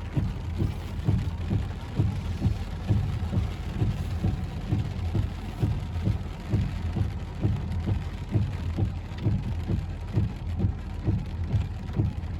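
Thunderstorm wind and rain buffeting: rapid, irregular low thumps, several a second, over a steady low rumble.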